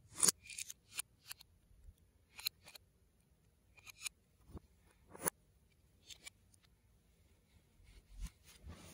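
LEGO plates and bricks clicking as they are handled and pressed together. The clicks are sharp and come at irregular intervals, the loudest just after the start.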